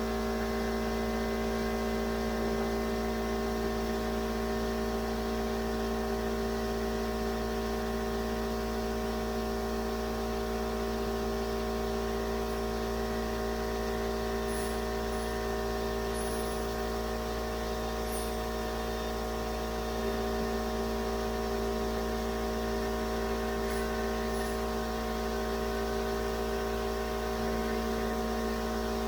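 A steady electric machine hum: several fixed tones over a constant low rumble, unchanging throughout, with a few faint light ticks in the middle and later on.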